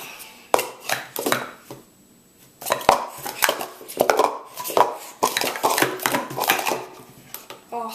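Speed Stacks Pro Series plastic stacking cups clacking and sliding against each other and the mat during a fast speed-stacking run. A few taps, a short pause, then a rapid run of clacks from about two and a half seconds in as the cups are stacked up and brought back down.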